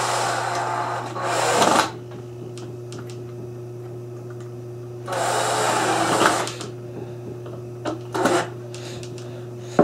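Cordless drill/driver running in two short bursts, driving screws into wood: one of about two seconds at the start and one of about a second and a half some five seconds in, with a couple of brief blips near the end.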